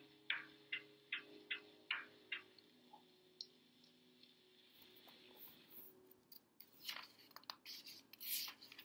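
Light regular ticking, two to three ticks a second, that stops about two and a half seconds in. From about five seconds in, paper rustling and crinkling as a book page is turned, loudest near the end.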